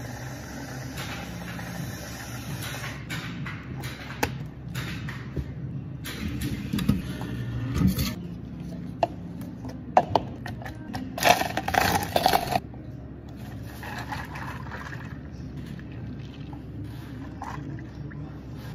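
Counter work in a bubble-tea shop over a steady low hum of equipment: clear plastic cups are pulled from a stack and knocked down onto the counter. There is a louder scraping clatter of plastic about eleven seconds in.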